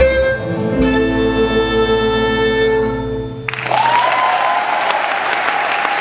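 Live folk band ends a song on a held chord of accordion and fiddle. The chord cuts off about three and a half seconds in, and audience applause breaks out.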